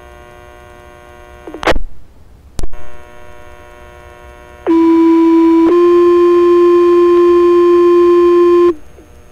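Two-tone sequential fire-department paging tones over a scanner radio: a low tone held about a second, then a slightly higher tone held about three seconds, the page-out alerting the station. Before them the open channel hums steadily, broken by two sharp squelch clicks.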